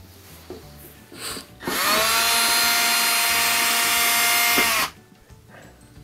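Cordless drill/driver backing out a Torx screw from a dishwasher's bottom drip panel: the motor whines up to speed about two seconds in, runs steadily for about three seconds, then winds down.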